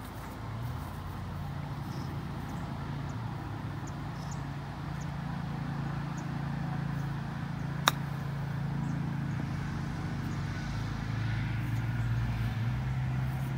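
A single sharp click of a golf club striking the ball on a chip shot, about eight seconds in. Under it, a steady low engine hum from a nearby motor vehicle runs throughout and grows a little louder in the second half.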